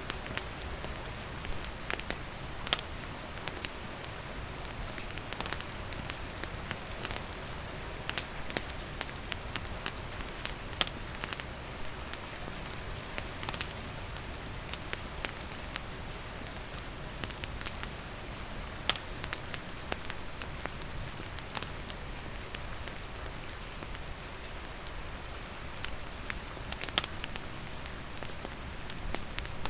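Steady rain falling, with a wood campfire crackling: scattered sharp pops and clicks over the even hiss of the rain.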